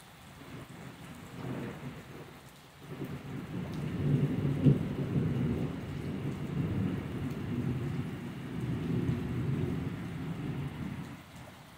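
Thunder following a lightning flash: a first low rumble about a second and a half in, then a longer, louder roll from about three seconds in, with a sharp crack near five seconds, that dies away near the end. Steady rain underneath.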